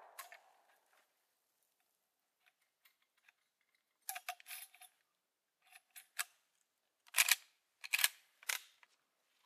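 Sharp metallic clicks and clacks of a Winchester Model 1894 lever action being worked between shots: the lever opening and closing to eject the spent 38-55 case and chamber the next round. The clicks come in several short groups from about four seconds in, after the last of a previous shot dies away at the start.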